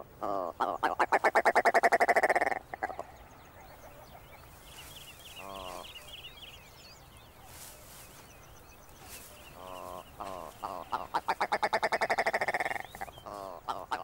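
Male willow ptarmigan giving its territorial display call: a loud, fast rattling series of pulses at the start, a short burst around the middle, and another long rattle toward the end.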